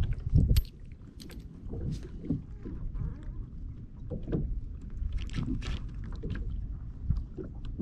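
Small waves lapping and sloshing against a plastic kayak hull, over a low rumble that is loudest in the first half-second, with a few scattered light clicks.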